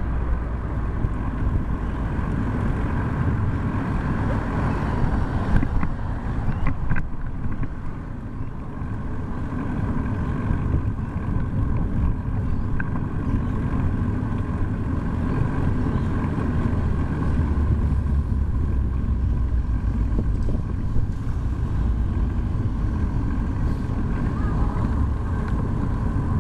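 Wind rushing over a bike-mounted camera's microphone while riding in traffic, mixed with steady road noise, with a few brief knocks about six to seven seconds in.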